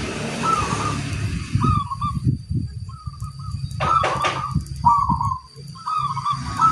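Zebra doves (perkutut) cooing, short rolling phrases following one another about once a second, over a low, uneven rumbling background.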